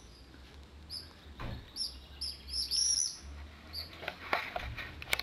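A small songbird chirping in short, high, repeated notes, a quick run of them in the first half and another near the end. A few soft knocks and rustles come in the last second or so.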